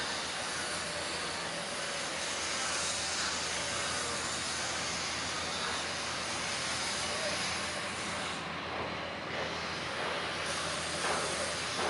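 Steady rushing hiss of outdoor background noise, with faint voices near the end.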